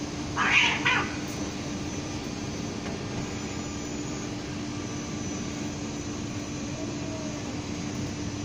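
A cat hisses once, sharply, about half a second in: a threat during a face-off with a rival cat. After it a steady low hum goes on in the background, and a faint low cat growl comes near the end.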